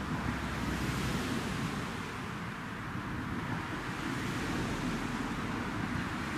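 Wind buffeting a camera's built-in microphone: a steady rumbling rush with no distinct beats or tones.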